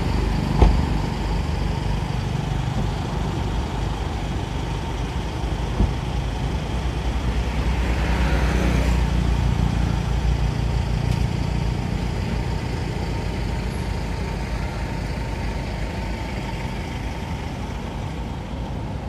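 Low, steady rumble of a motor vehicle's engine running close by, with a couple of short knocks.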